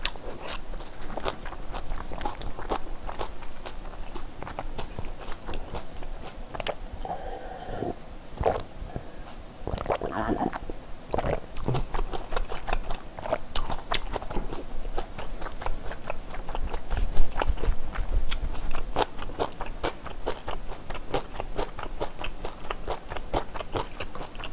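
Close-miked chewing of spicy seafood kalguksu noodles, with a steady run of small sharp wet mouth clicks.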